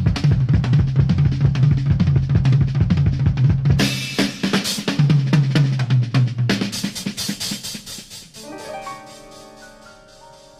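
Recorded music: a drum-kit groove of bass drum, snare and cymbals over a bass line, with cymbal crashes about four and six and a half seconds in. It fades out from about seven seconds, and quieter held pitched notes come in near the end.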